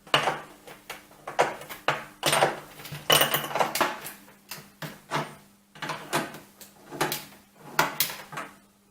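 Titanium wrench clicking and scraping against a bolt head as it is worked back and forth in a ratcheting motion: a run of irregular metallic clicks, several a second.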